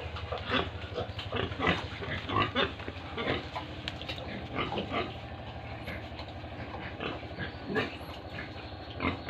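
Pigs grunting in short, irregular grunts, one after another, over a steady low hum.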